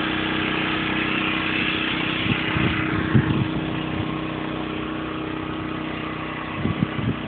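A pressure washer's petrol engine running steadily. A high hiss eases about three seconds in, and a few low thumps come around three seconds in and again near the end.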